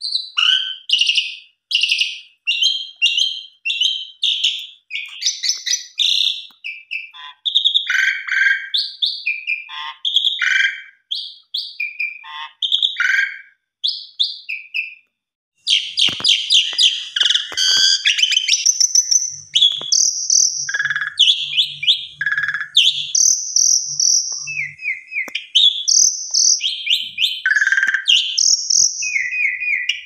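Asian pied starling singing a rapid, varied stream of short whistles, chirps and buzzy notes, mostly high-pitched. The song stops briefly about halfway through, then resumes denser and faster.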